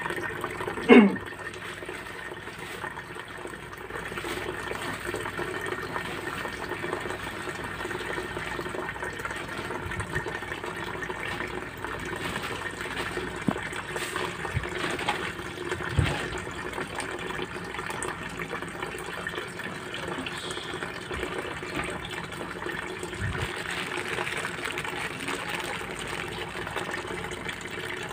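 Water running steadily, a continuous rush. A brief falling squeak about a second in, and a few soft knocks.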